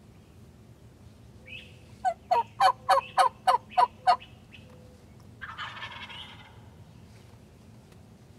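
Wild turkey calls: a run of eight loud yelps, about four a second, then a rattling gobble from a gobbler about a second later.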